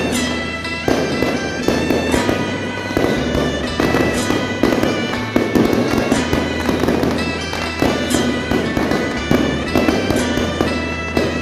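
Continuous firecracker crackling from an electronic firecracker machine, dense pops and clicks throughout, with music playing under it in sustained tones.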